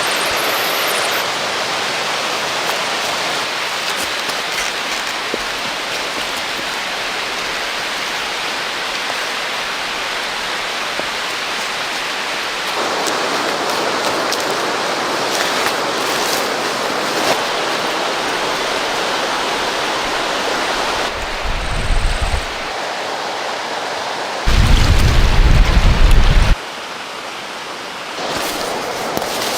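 Rushing river water, a steady hiss that shifts abruptly at several points. Near the end come two bursts of low rumble, the second loud and about two seconds long.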